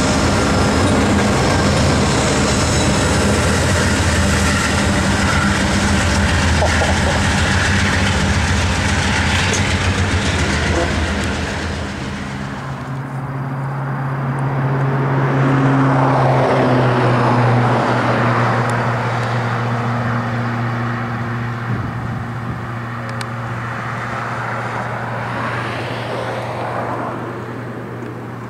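Steel wheels of an Amtrak passenger train's cars rolling past close by, a loud rumble and clatter with thin squealing tones over it. About twelve seconds in it gives way to a quieter scene: an approaching Amtrak diesel locomotive still far off, a steady low hum.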